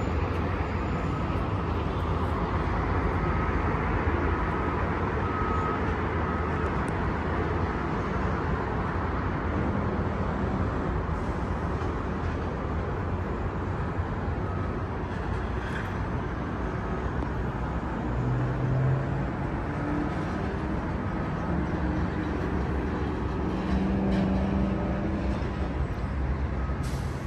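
Steady distant city traffic noise heard from high above the street, with a low rumble underneath.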